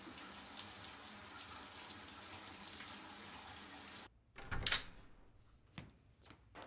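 Running shower water, a steady hiss that cuts off abruptly about four seconds in. A door thump follows, then a few soft knocks or steps.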